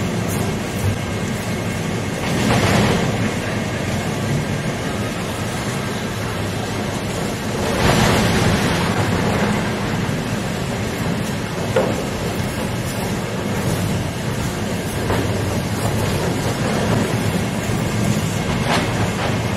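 EPS foam cold compactor running steadily, its hopper crusher shredding polystyrene boxes, with louder swells of crunching three times as boxes are thrown in.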